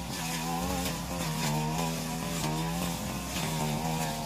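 Backpack brush cutter engine running steadily at high speed as it cuts grass and weeds. Brief high hissing strikes come from the cutting head hitting the vegetation.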